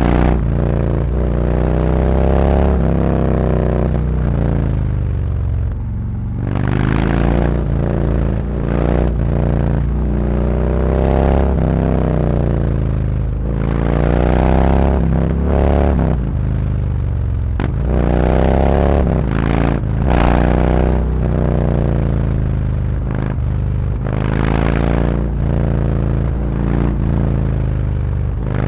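Harley-Davidson Road Glide's V-twin engine through SuperTrapp 4-inch slip-on mufflers, accelerating again and again: the exhaust note climbs in pitch and drops back as each gear is shifted, with a deep low rumble throughout.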